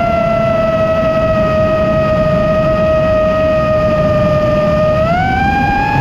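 Nazgul Evoque F5 five-inch FPV quadcopter's brushless motors and propellers whining at a steady pitch over a rush of air, the whine rising sharply about five seconds in as the throttle is pushed up.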